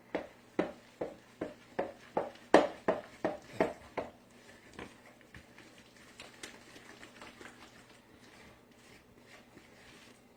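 Spatula knocking against a mixing bowl while stirring butter, icing sugar, egg and vanilla together: a quick run of regular strokes, about two or three a second, for the first four seconds, then softer, irregular taps.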